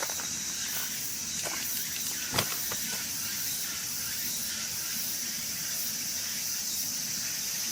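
Steady high-pitched drone of summer forest insects, with one sharp click about two and a half seconds in and a few fainter ticks.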